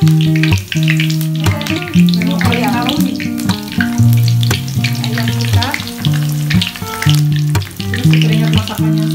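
Hot oil sizzling and crackling in a wok as curry leaves fry, with a piece of breaded chicken lowered into the oil about four seconds in. Background music with a sequence of low notes plays over it.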